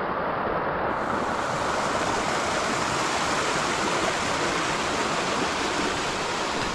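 Small waterfall: a steady rush of falling, splashing water.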